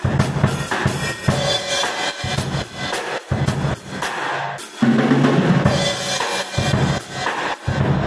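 Acoustic drum kit being played: a rapid stream of bass drum, snare and tom strikes. The rack tom and floor tom have newly fitted heads. The playing gets louder and denser about five seconds in.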